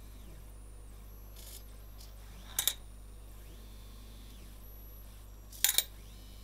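Small stepper-motor robot arm moving: its geared stepper motors whine faintly, the pitch rising, holding and falling as each move speeds up and slows down. Two short, sharp clicks, the loudest sounds, come about three seconds apart, a little before the middle and near the end.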